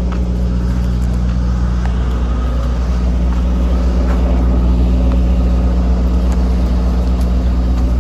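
Peterbilt semi-truck's diesel engine running, a steady low drone heard from inside the cab, rising slightly in level midway.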